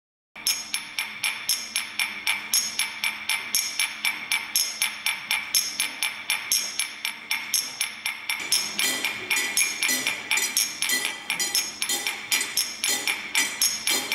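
Rhythmic percussion of sharp, ringing clinks, about three strikes a second, starting abruptly; a lower knocking part joins about eight and a half seconds in.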